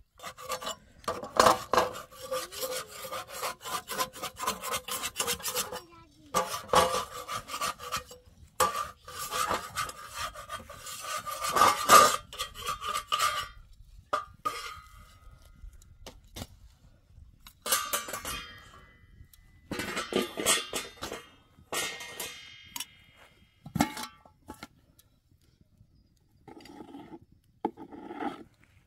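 Repeated rough scraping and rubbing strokes, coming in runs of several seconds with short breaks, then fainter and sparser toward the end.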